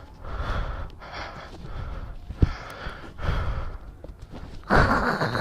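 Heavy breathing: a series of loud, noisy breaths about a second apart, with a sharp click about halfway through and a louder rush near the end.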